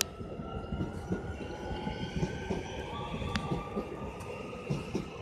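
Electric train at the station: a low rumble with a steady high whine over it, and one sharp click about three and a half seconds in.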